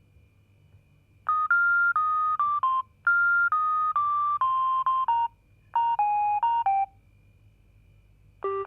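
Roomba robot vacuum's beeper playing a melody one note at a time in electronic beeps, in three short phrases with pauses between. Just before the end several Roomba beeper parts come in together, sounding chords.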